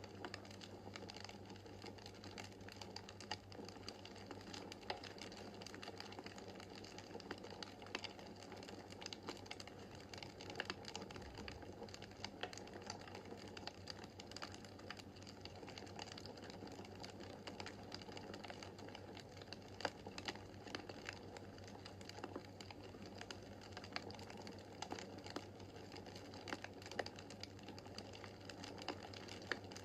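Wood fire crackling in a fireplace, with frequent irregular sharp snaps and pops over a soft steady rush.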